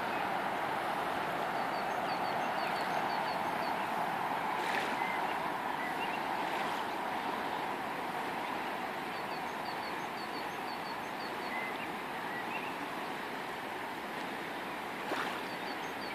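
Steady rushing of a fast-flowing river, with a few short runs of faint high-pitched chirps and a couple of light knocks.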